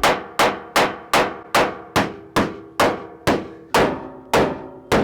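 A hammer striking steadily at a little over two blows a second. Each blow is followed by a short metallic ring.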